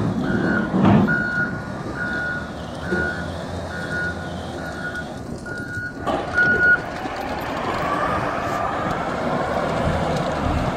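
Large wheel loader working in a rock quarry: its reversing alarm gives about eight evenly spaced beeps and stops about two-thirds through. Then the diesel engine revs up as the rock bucket is driven into the pile and lifts a load of limestone.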